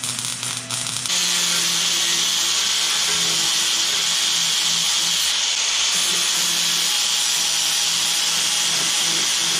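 A MIG welder crackles briefly at the start. Then, from about a second in, an angle grinder runs steadily, grinding the steel radiator fan shroud of a 1956 Ford Thunderbird.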